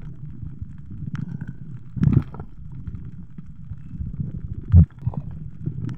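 Muffled underwater noise picked up through a camera's waterproof housing: a steady low rumble of water movement, with a louder rush about two seconds in and a short low thump near the end.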